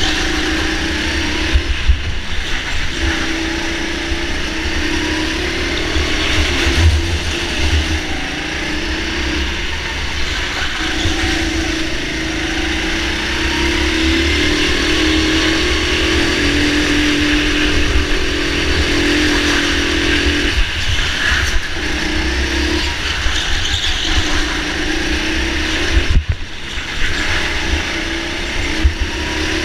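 Go-kart running hard around an indoor track, its pitch rising and falling with speed through the corners, with wind buffeting the onboard microphone.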